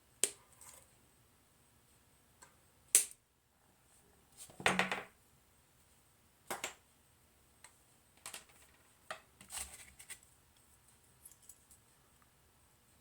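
Scattered light clicks and taps of small hand tools and wires being handled on a workbench, a dozen or so separate knocks with pauses between them.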